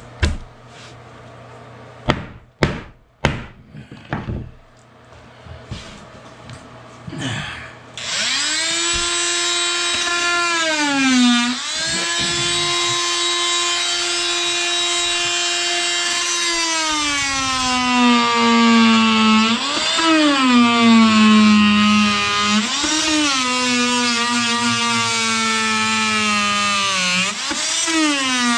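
A few knocks, then about a third of the way in an electric power saw starts and runs at high speed, cutting wood. Its whine drops in pitch as the blade bogs into the cut and rises again each time the load eases, several times over.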